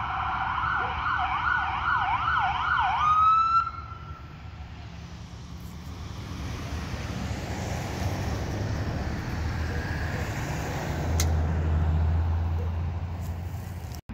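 Police car siren sounding a steady tone, switching to a fast yelp about two sweeps a second, then rising to a high note and cutting off suddenly a few seconds in. After it, a low rumble of vehicles with a steady low engine hum near the end.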